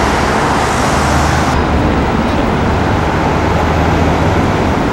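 City street traffic: steady road noise with the low hum of vehicle engines. The high hiss drops away abruptly about a second and a half in.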